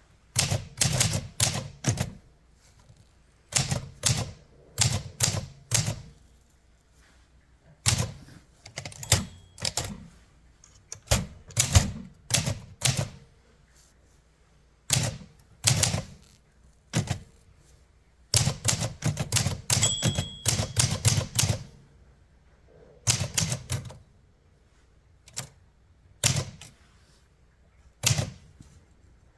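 1962 Olympia SM7 manual typewriter being typed on: quick runs of key strikes in bursts, with short pauses between them. A brief bell ding comes about twenty seconds in.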